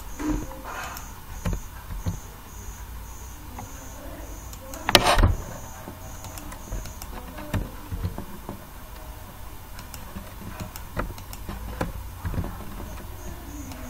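Scattered computer mouse clicks and keyboard taps over a steady low hum, with one louder thump about five seconds in.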